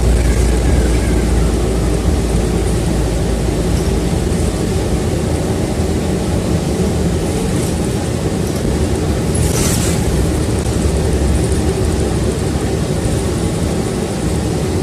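City bus running, heard from on board: a steady engine and road rumble, with a short hiss about nine and a half seconds in.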